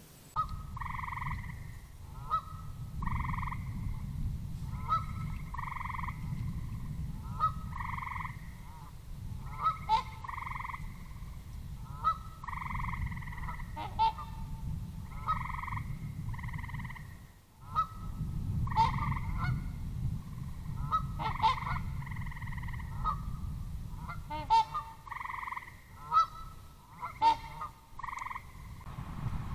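Waterfowl honking over and over, about one call a second, each a short rising note leading into a longer honk. A steady low rumble runs beneath.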